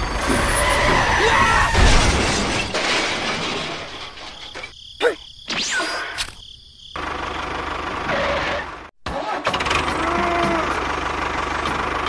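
Dubbed-in vehicle engine and crash sound effects for a toy train hitting a toy tractor, spliced together with abrupt cuts to silence and a falling sweep about five and a half seconds in.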